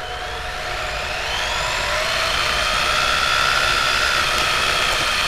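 Radio-controlled car's motor whining as it drives, rising in pitch over the first two or three seconds and then holding steady, heard close up from a camera mounted on the car.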